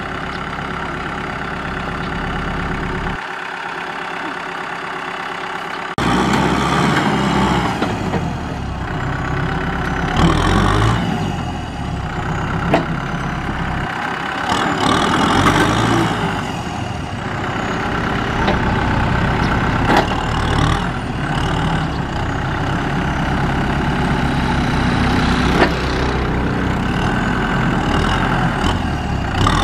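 Kubota M6040SU tractor's diesel engine running steadily, then, about six seconds in, louder and working under load as its front blade pushes soil, its speed rising and falling. A few short sharp knocks come through over the engine.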